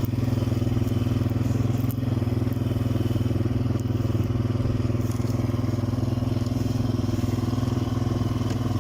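ATV (quad bike) engine running at a steady pace while riding.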